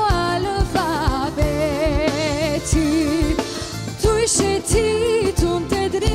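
Live band music: a woman sings a wavering, ornamented melody with vibrato, backed by a drum kit keeping a steady beat, violins and keyboards.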